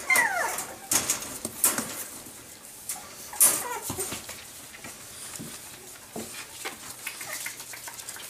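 French bulldog puppies whimpering briefly at the start, then a few sharp clicks and rattles from the wire crate as it is opened, with small scattered sounds of the puppies moving about.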